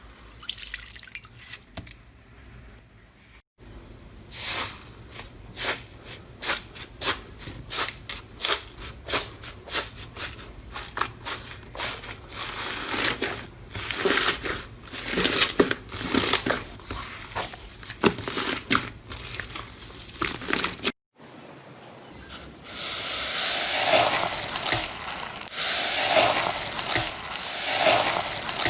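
Hands squishing and poking slime: a run of sharp, sticky pops and crackles, turning in the last several seconds into a denser crackling that swells about every two seconds as the slime is pressed.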